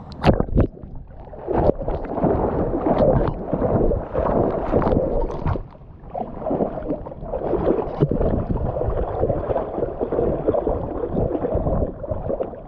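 Golden retriever splashing and wading through shallow water, picked up close by a GoPro on its harness: a continuous, irregular churn of splashes and sloshing water.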